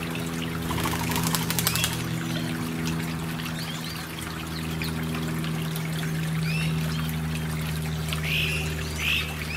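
Water trickling steadily over a low steady hum, with a quick run of clicks in the first two seconds and a few short chirping bird calls, several close together near the end.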